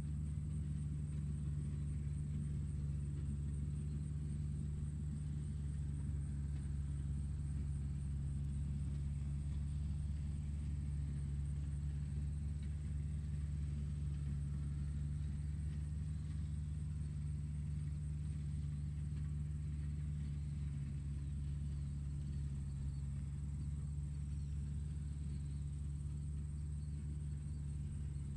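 Tractor engine running steadily at a constant speed: a low, even drone with no change in pitch, and a faint high whine above it.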